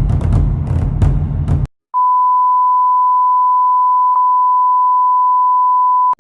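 Intro music with drum hits cuts off about a second and a half in, then a steady, high-pitched electronic beep holds at one pitch for about four seconds and stops abruptly.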